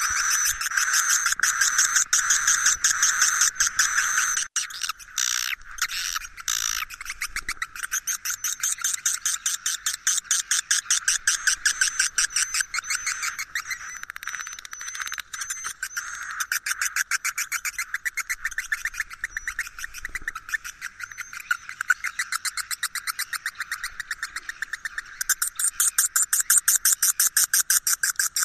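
Recorded swiftlet calls played as a roosting lure ('suara inap'): a dense, rapid chattering of many short twittering chirps per second, meant to draw swiftlets into a swiftlet house to roost.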